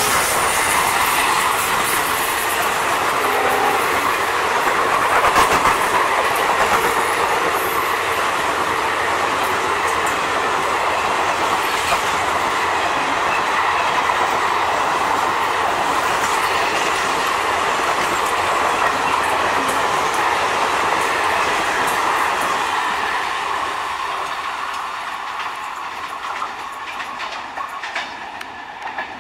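An Indian Railways express train's passenger coaches pass close by, their wheels clattering over the rail joints, and the sound fades away as the last coach draws off near the end.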